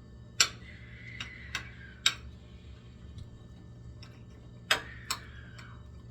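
Eating sounds at a meal table: scattered sharp clicks and taps, about eight of them, the loudest about half a second in and again near the end.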